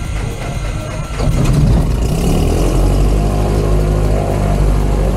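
A single-engine piston aircraft engine is cranked by its starter and catches about a second in. It picks up briefly, then settles into steady running, heard from inside the cockpit.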